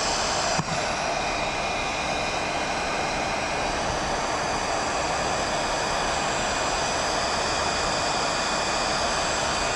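Electric heat gun running steadily, blowing hot air onto an old Honda mower automatic-choke thermowax to make the wax inside expand. An even fan-and-air rush with a faint high whine.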